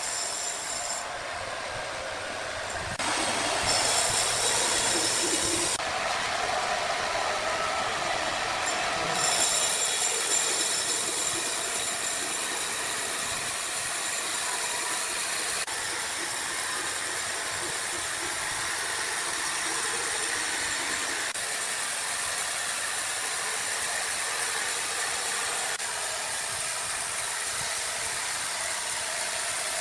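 Sawmill machinery running: a steady mechanical rumble and hiss. It changes abruptly a few times in the first ten seconds, then runs on evenly.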